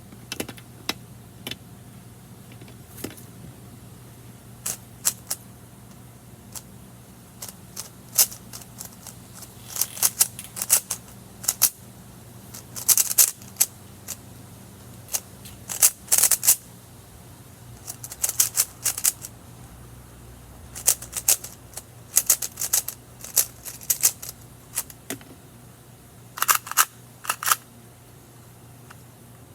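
Plastic Rubik's cube being turned fast in a timed solve: bursts of sharp clicking layer turns with short pauses between.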